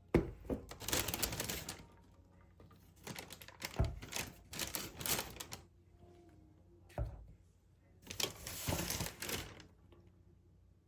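Bursts of rapid clicking and tapping with a few sharper knocks, coming in four clusters separated by short quiet pauses.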